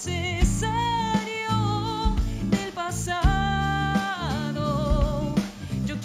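A woman singing a ballad, holding long notes that bend and waver, over guitar and a low beat that hits about once a second.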